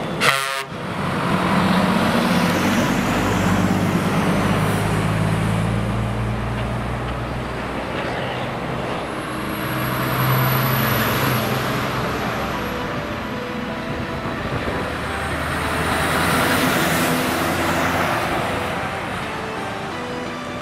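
Heavy truck diesel engines pulling past one after another, swelling and fading several times. There is a short loud burst about a quarter second in, and a thin high whistle over the engines for a few seconds in the middle and again later.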